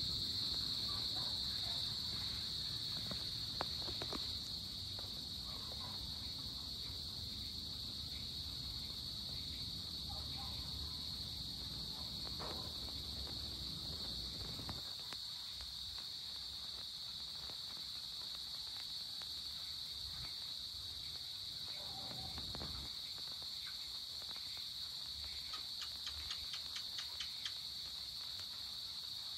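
Insect chorus: a steady high-pitched trilling that does not let up. A low rumble underneath drops away about halfway through, and near the end comes a quick run of clicks, about five a second.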